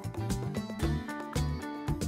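Background music: an instrumental track with a bass line, held pitched notes and a steady beat.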